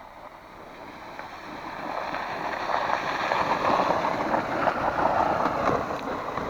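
Plastic ice sled scraping and hissing as it slides down over snow and ice. The noise builds from about two seconds in, is loudest in the middle and eases near the end.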